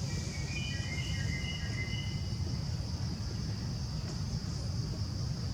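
Steady high-pitched drone of insects in the forest, over a low rumble. A few thin whistled tones are heard in the first two seconds or so.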